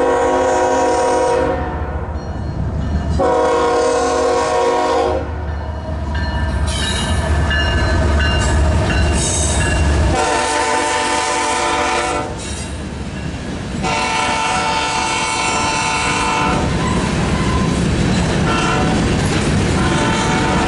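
Diesel freight locomotives' air horn sounding four long blasts; the first is already sounding at the start and the last ends about two-thirds of the way through. Between blasts the locomotives rumble past, and after the last blast the loaded train's hopper cars roll by with a steady noise of wheels on rails.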